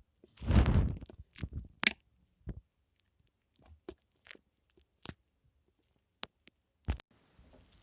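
Foam being handled close to the microphone for ASMR: a loud crushing sound lasting under a second about half a second in, then scattered light taps and short crackles.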